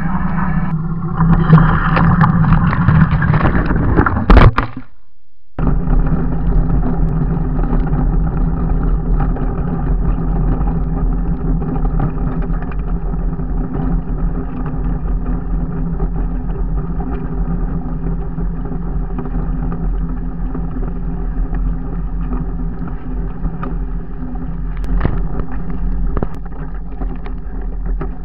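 Ursus 5314 tractor's diesel engine running steadily under load while pulling a field drag across dry soil. The sound drops out briefly about five seconds in, then carries on evenly.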